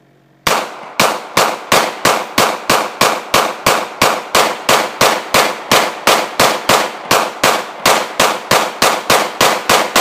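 9mm semi-automatic pistol fired in a long unbroken string of shots, about three a second, starting about half a second in, each shot trailing off briefly.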